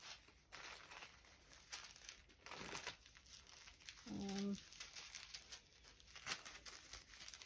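Small plastic zip-lock bags of diamond-painting drills crinkling faintly in short, scattered rustles as they are picked up and set down.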